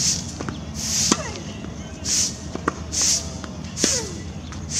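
Tennis rally on a hard court: the sharp pop of racquets striking the ball and the ball bouncing, a handful of hits about a second or so apart. Short hissing bursts recur in between, about once a second.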